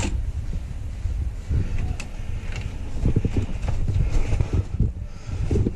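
Airsoft gun shots: a sharp crack at the start and fainter clicks about two seconds in, over uneven low thumping and rustle close to the microphone.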